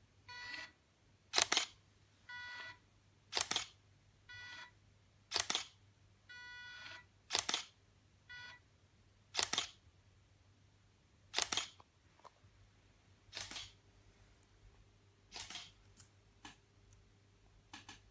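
Canon DSLR shutter firing every two seconds for a timelapse, with the slider's motor whining for about half a second between shots as it moves the camera along the belt. The motor bursts stop about halfway through, leaving only the regular shutter clicks.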